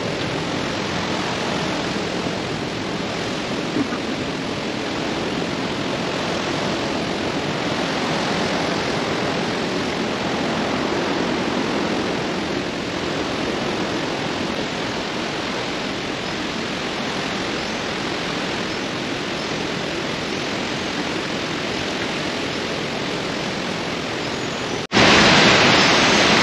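Steady rush of flowing water. Near the end it cuts suddenly to a louder, brighter rush, as of water heard closer.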